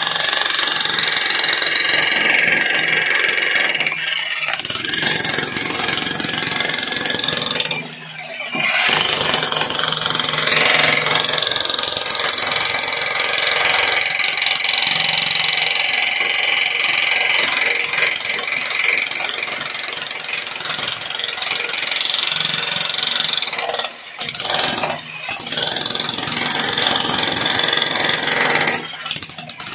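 Electric 16 kg demolition breaker hammering its chisel bit into concrete. It runs almost continuously, with a few short stops where the trigger is let off.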